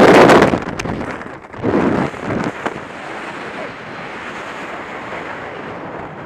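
Wind rushing over a skydiver's helmet-camera microphone, loud at the start and dying down within the first second, with two short louder rushes about two seconds in. It then settles to a steady, softer rush of air under the open parachute canopy.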